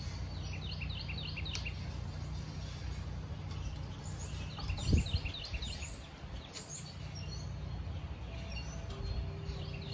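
Small birds chirping in quick repeated series over a steady low background rumble, with a single dull thump about halfway through.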